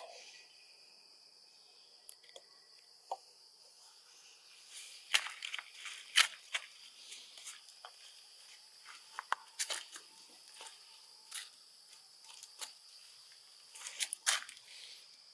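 Steady high-pitched insect drone, with scattered sharp clicks and short rustles, loudest about five and six seconds in and again near the end.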